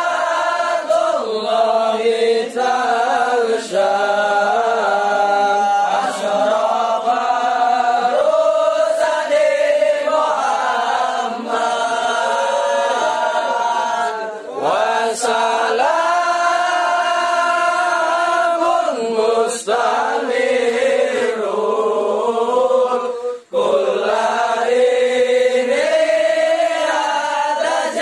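A group of young men chanting sholawat together without instruments, one long melodic line of many voices that rises and falls, with a short break for breath near the end.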